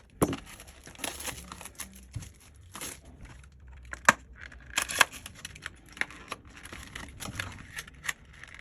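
Plastic packaging of a new replacement phone battery being crinkled and torn open, with irregular sharp crackles and clicks.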